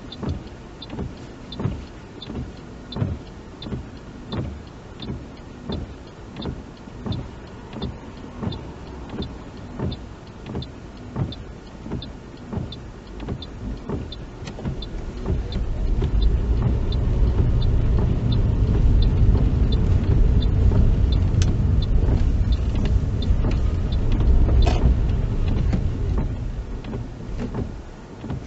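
Inside a car's cabin in rain: the windscreen wipers sweep with a regular thump about once a second. About halfway through, low road and engine noise swells loudly and holds as the car speeds up to the national speed limit.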